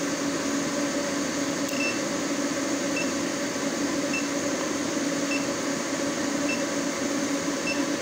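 Induction forge running while it heats a 1-inch round bar: a steady hum with a low tone over an even rushing noise, and a faint short high beep about every 1.2 seconds.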